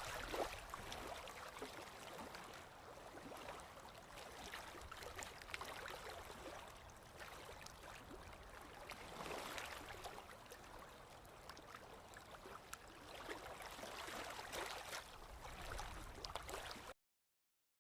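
Faint ocean surf and breeze at the beach, an even wash of noise that swells a few times, then cuts off abruptly near the end.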